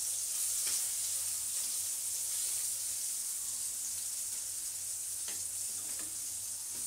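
Thin slices of pointed gourd (potol) sizzling in hot oil in a steel kadai, a steady hiss, with a few light scrapes of the metal spatula against the pan.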